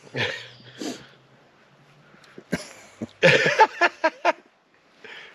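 A man laughing heartily in short, choppy bursts, loudest about three seconds in.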